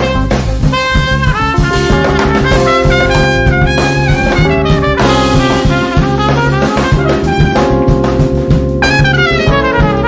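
Live jazz: a trumpet plays a melodic lead line, held notes and moving phrases, over electric bass guitar and drum kit.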